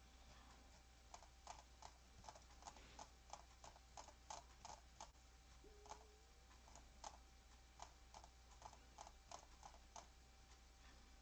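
Faint, irregular clicking at a computer, about two or three clicks a second, as someone pages through a document, over a faint steady hum.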